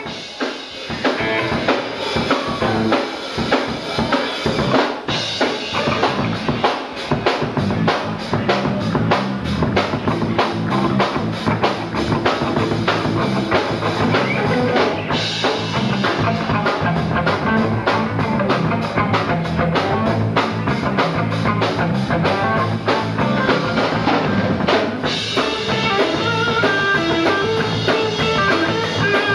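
Live rock band playing an instrumental: a drum kit with kick and snare keeps a fast steady beat, joined by a stepping bass line and electric guitar. The sound builds up over the first second.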